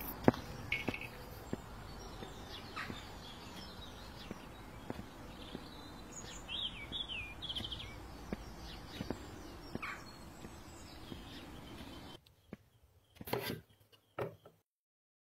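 Faint outdoor background with small birds chirping now and then and scattered soft taps. About 12 s in it drops to a quieter room sound with two brief knocks, then cuts to silence.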